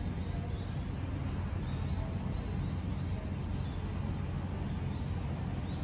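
Steady low rumble of railway station and city background, with a few faint, short bird chirps.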